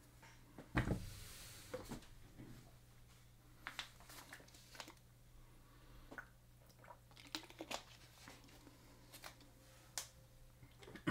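Cardboard trading-card boxes being handled and set down on a table: a knock about a second in, then scattered light clicks and rustles.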